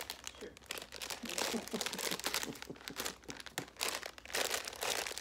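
Plastic candy packet of edible Easter grass crinkling as it is handled, a dense run of small crackles.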